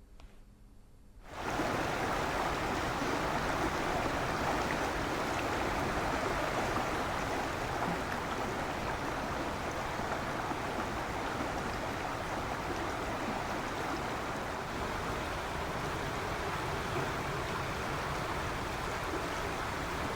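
Fast-flowing river water rushing, a steady noise that cuts in about a second in.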